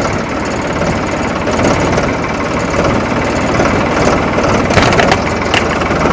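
Ford 3600 tractor's three-cylinder diesel engine running steadily at low revs as the tractor creeps forward in first gear. A little under five seconds in, and again near the end, come sharp cracks: the plastic shell of a cheap motorcycle helmet breaking under the rear tyre.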